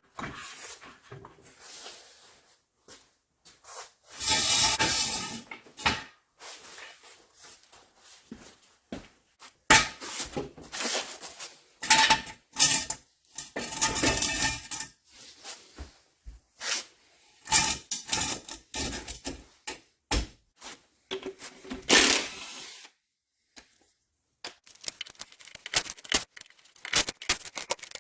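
Scattered clicks, knocks and rubbing of objects being handled. A few longer, louder rustling stretches come about four seconds in, around twelve to fifteen seconds, and again near twenty-two seconds.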